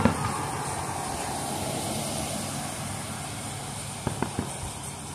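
Aerial fireworks: a loud boom right at the start, followed by a few seconds of fading crackle from the burst, then three quick pops about four seconds in. A steady low hum runs underneath.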